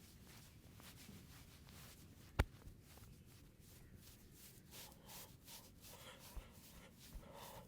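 Faint rubbing and stroking of hands during a head and back massage, with a run of regular strokes in the second half. A single sharp click stands out about two and a half seconds in.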